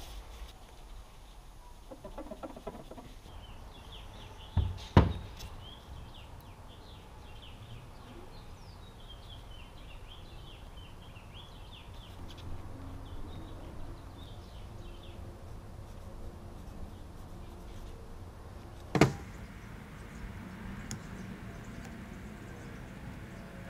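Two sharp knocks, one about five seconds in and one about nineteen seconds in, over a low steady background. Between them, faint birds chirp in a run of short calls.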